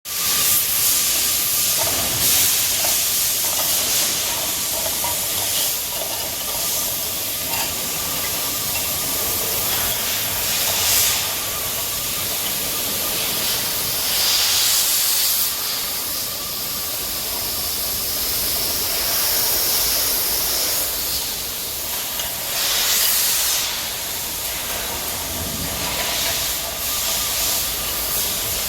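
Magnetic tin can washing machine running: a steady loud hiss of spraying, rising and falling a little in strength, over a faint steady machine tone.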